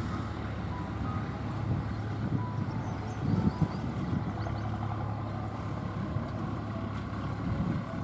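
Steady low engine-like hum over a background rumble, with a few louder low rumbles about three and a half seconds in.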